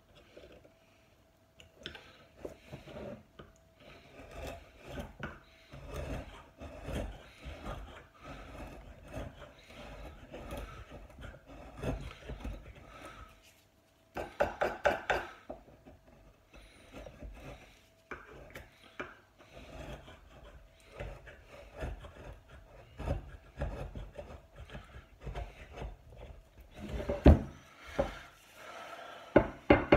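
Hand tool rubbing and scraping across a wooden table top in repeated short strokes with brief pauses, taking the wood down around a deep hole. A single sharp knock near the end.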